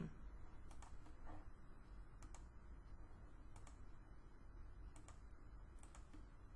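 Faint computer mouse clicks, some in quick pairs, scattered several times over a faint low hum.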